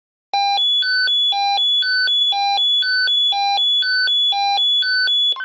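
Swissphone Quattro XLSi pager sounding its alert tone for an incoming alarm: electronic beeps cycling through three pitches about once a second. The beeping starts a moment in and cuts off near the end.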